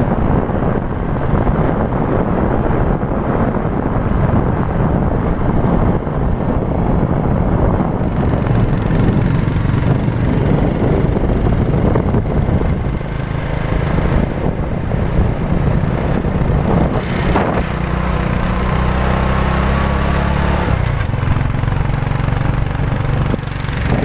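Motorcycle engine running while riding along a road, with heavy wind rumble on the microphone. The engine's steady hum shows through more clearly in the last several seconds.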